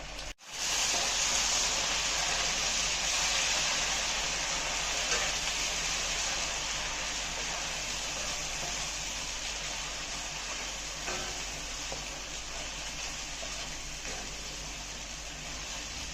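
Ground onion paste sizzling as it hits hot sesame oil in a kadai: a steady, even hiss that starts abruptly and slowly dies down.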